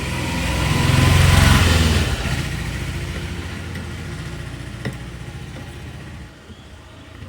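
A motor vehicle's engine passing by, growing louder to a peak about a second and a half in, then fading away over the next few seconds.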